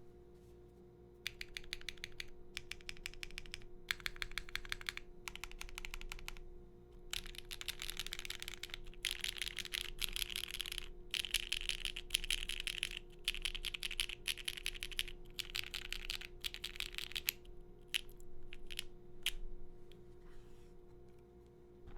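Typing on a Bakeneko65 mechanical keyboard with a POM plate, stock HMX Perky Gaming switches and GMK keycaps: several runs of fast keystrokes, the longest and loudest in the middle, then a few single key presses near the end. A faint steady hum lies underneath.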